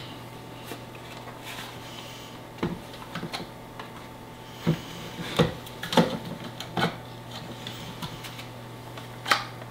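Plastic snap-clips of a 5G home internet gateway's outer housing clicking and snapping as its side panel is pried and worked loose: a scattering of sharp clicks and knocks, several in quick succession in the middle and one more near the end.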